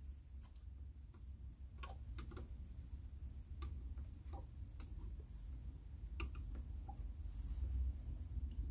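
Scattered light clicks and ticks, about eight, irregularly spaced, as a small screwdriver pries the rubber vent caps off a 12-volt lead-acid battery's cells, over a low steady hum.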